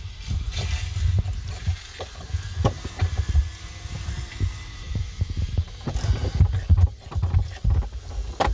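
Handling noise: fingers and a hand-held tool rubbing and knocking against the camera's microphone. It makes an uneven low rumble with scattered clicks and taps.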